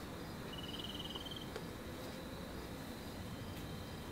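Cricket chirping: one trill of rapid, even pulses, starting about half a second in and lasting about a second, over a faint steady hiss.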